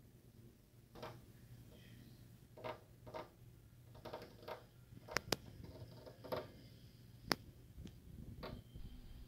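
A goldfinch tapping and pecking at window glass: irregular light ticks, with a few sharper taps in the second half.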